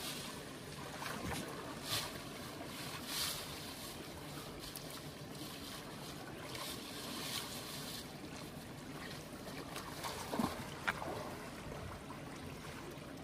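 Steady rush of flowing river water, with a few brief sharper splash-like sounds, two of them close together about ten seconds in.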